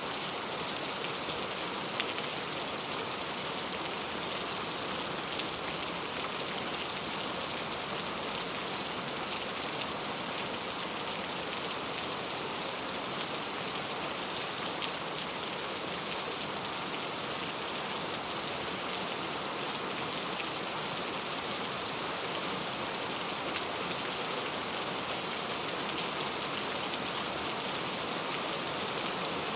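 Heavy rain falling steadily in an even hiss, with scattered drops ticking on a surface.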